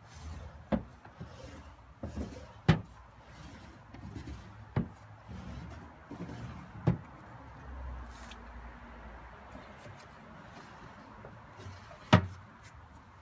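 Wooden drawers of a Henredon Heritage chest sliding open and shut, the wood rubbing on its runners, with several sharp wooden knocks as drawers and a cabinet door close, the loudest near the end.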